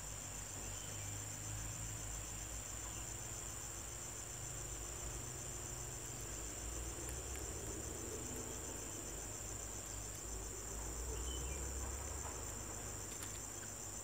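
A steady chorus of insects: a continuous high-pitched, rapidly pulsing trill that never stops, over a low rumble.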